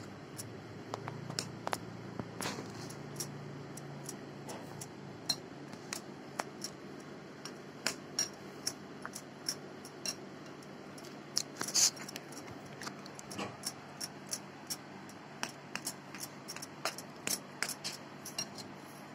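A spoon clinking and scraping against a glass bowl while wheat flour is mixed with hot oil: irregular sharp clicks, with a cluster of louder ones a little past the middle.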